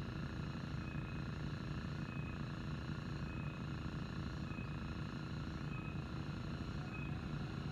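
Fishing reel being wound in: a steady low whirring with rapid pulsing and a faint high tick about once a second, the lure being retrieved after a cast.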